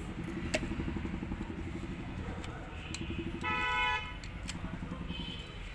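A vehicle horn sounds one short honk about three and a half seconds in, over a steady low engine rumble, with a single sharp click near the start.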